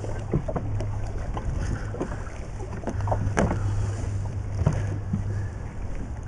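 Knocks and clicks of a fish being handled and unhooked in a landing net on a small inflatable boat, over a steady rush of wind and sea and a low hum that comes and goes.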